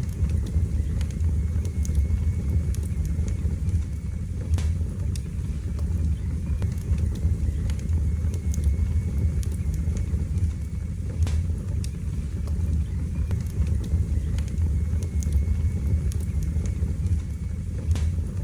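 Wood fire burning in a fireplace: a steady low rumble of the flames with sparse crackles and about three sharper pops spread through.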